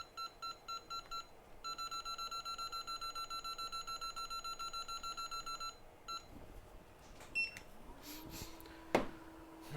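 Rapid electronic beeps from soldering rework equipment's control panel: a handful of separate short beeps, then a fast even run of about eight beeps a second lasting about four seconds. Near the end a low steady hum starts, with a sharp click.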